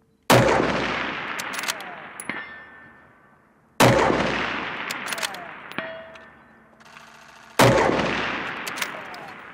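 Three rifle shots from a Tikka-action bolt-action long-range rifle, about three and a half seconds apart, each with a long echoing decay. Short metallic clicks follow each shot.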